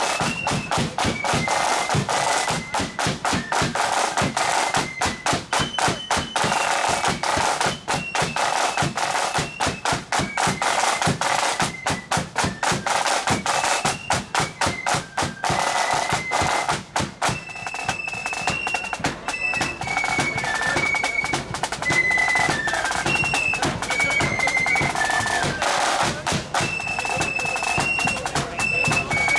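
Marching band playing a tune on high flutes over rattling snare drums and bass drum.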